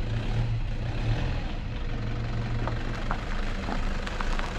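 Toyota Hilux pickup's turbo-diesel engine running at low revs, a steady low hum, as the truck pulls slowly out through a gateway.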